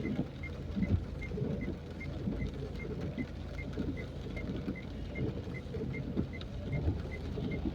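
Low steady rumble of city traffic, with a faint high tick repeating evenly about two to three times a second over it.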